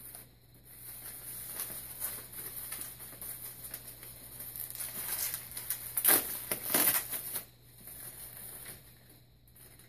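Packaging being unwrapped by hand: crinkling and rustling with many small crackles, loudest about six to seven seconds in, dying down near the end.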